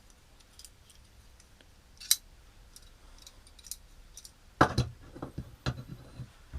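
Clicks and light knocks from a metal folding utility knife being handled. Scattered faint ticks are followed by one sharp click about two seconds in, then a cluster of louder knocks and clicks near the end.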